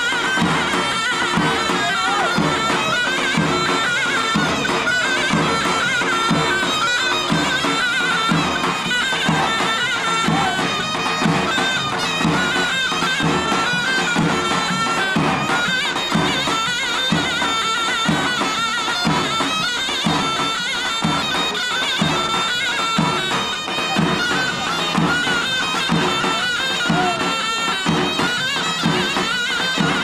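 Folk dance music: a shrill reed wind instrument plays an ornamented melody over a regular drum beat.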